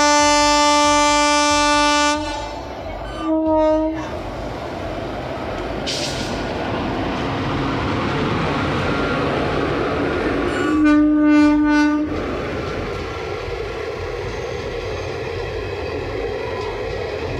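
Train horn sounding three times: a long blast of about two seconds, a short one a second later, then another of over a second near the middle. Between the blasts is the steady rumble of the train running on the track.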